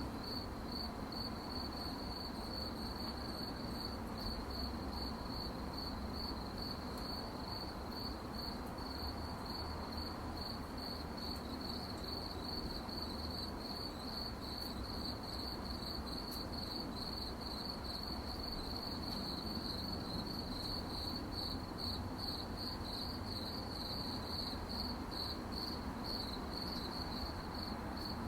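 Crickets chirping at night, a steady stream of high, quick pulsed chirps over a low, even background noise.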